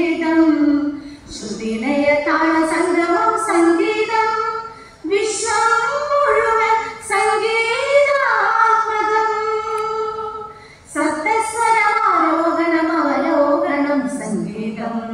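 A group of women singing a song together into microphones, in long held phrases with short breaks between them.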